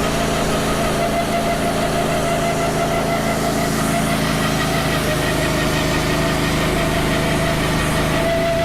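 Wood-Mizer LT35 portable sawmill running with its bandsaw blade cutting through a wide log: a steady engine drone with a steady whine above it. The sawyer suspects the blade is dull and grinding through the cut.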